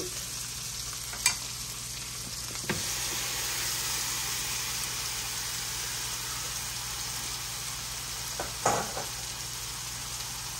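Diced green bell peppers sizzling in hot oil in a nonstick skillet, a steady frying hiss at the start of a stir fry that grows a little louder about three seconds in. A few short clicks sound over it, two in the first three seconds and one near the end.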